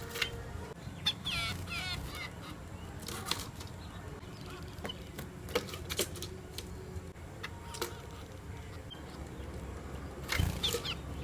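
Sparrows chirping in short, quick clusters, about a second in and again near the end, with scattered sharp ticks in between.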